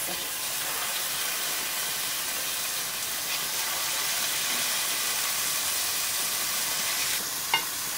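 Beef steaks sizzling as they sear in a little vegetable oil in a hot pan: a steady, even hiss. One short click near the end.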